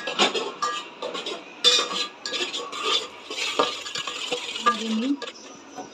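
A spoon stirring and scraping thick onion-tomato masala paste in a cooking pot, with irregular clinks and knocks against the pot.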